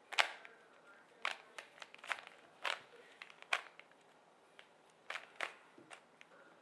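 Plastic layers of a 3x3 Rubik's cube clicking and clacking as they are twisted by hand. The turns come as irregular runs of quick clicks, with a pause of about a second and a half near the middle.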